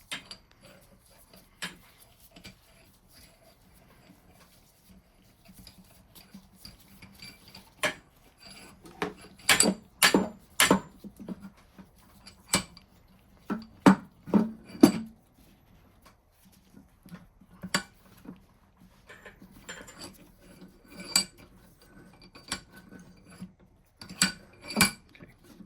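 Metal parts of a Reed vise clinking and knocking as they are handled and fitted together during reassembly: scattered light taps, with a run of louder knocks about ten to fifteen seconds in and a couple more near the end.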